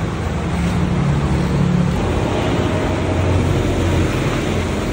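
Street traffic noise: vehicle engines running and passing close by over a steady rushing roar, with a low engine hum rising and fading about halfway through.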